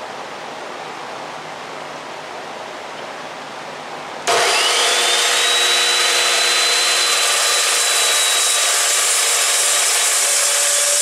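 Chop saw with a toothed blade starting up about four seconds in, its motor whine rising quickly to a steady high pitch under loud running noise as it cuts 1/8-inch aluminum flat bar. Before that there is only a low steady hiss.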